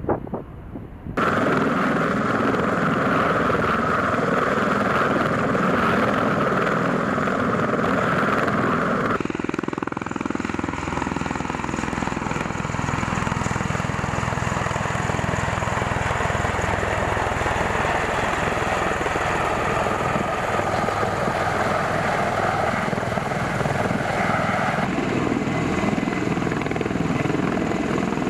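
Bell Boeing MV-22B Osprey tiltrotor's two proprotors and turboshaft engines running steadily as it flies and hovers with an external sling load. The sound changes abruptly about a second in, and again about a third of the way through and near the end.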